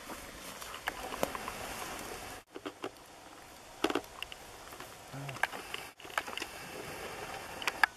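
Light rustling in dry leaf litter with scattered small clicks and knocks of handling gear, twice cut off for a moment.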